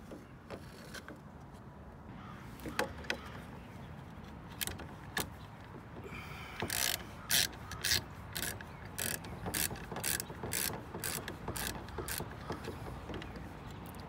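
Socket ratchet wrench clicking, a few scattered clicks at first, then a steady run of about two clicks a second, as a car door handle's lock mechanism is unbolted.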